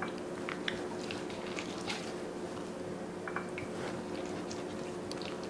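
Faint wet squishing and light taps of bare hands rubbing vinegar into a raw rack of pork spare ribs on an aluminum sheet pan, over a steady low hum.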